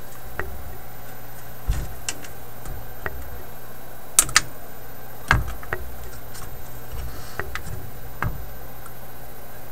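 Scattered light clicks and taps of hands and tools working among the wires and capacitors of a vintage tube radio's metal chassis, sharpest a little after four seconds and again just after five, over a steady low hum.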